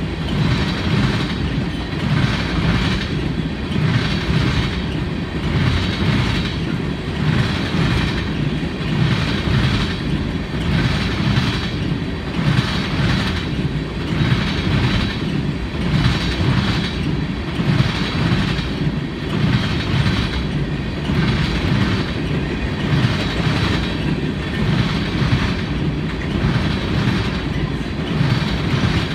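Freight cars of a passing train rolling by, a steady low rumble with wheels clacking over rail joints about once a second.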